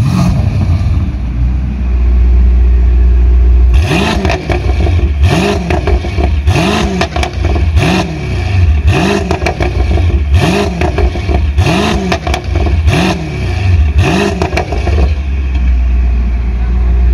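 Mercedes-AMG C63 (W205) twin-turbo V8 through a Topgear full valvetronic exhaust, idling low, then blipped about nine times in quick succession, each rev rising and falling back with a sharp burst, before settling back to idle near the end.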